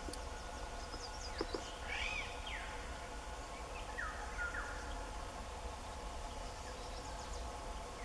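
Several short bird calls over a steady insect drone: quick high chirps near the start and again near the end, a pair of curved calls about two seconds in, and a falling call about four seconds in.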